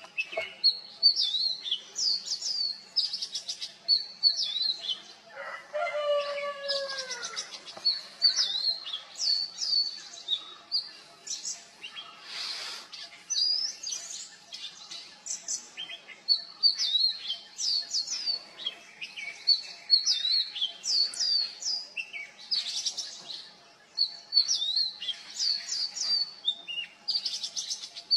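Oriental magpie robin singing: a continuous run of short, high, sharply slurred whistled phrases with brief pauses between them. About six seconds in, a lower call of a few falling notes sounds under the song for a second or two.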